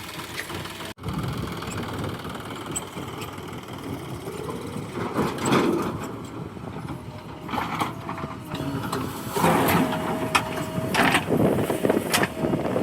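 JCB 3DX backhoe loader's diesel engine running, with a thin whine that comes and goes and several louder swells as it works.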